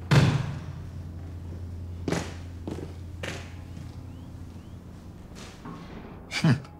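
A heavy thud just after the start, then several softer knocks and thumps spaced a second or so apart, over a low steady hum.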